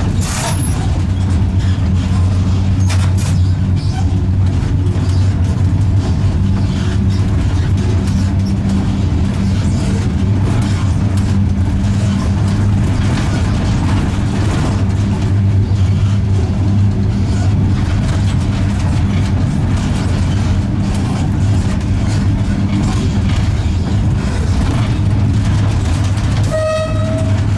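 LEW EL2 electric locomotive under way, heard from inside the cab: a steady low hum with rumbling wheel and rail noise. Near the end comes a brief toot of a horn.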